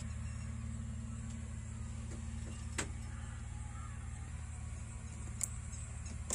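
JCB 3DX backhoe loader's diesel engine idling steadily, heard from inside the cab as a low, even hum, with a couple of faint clicks.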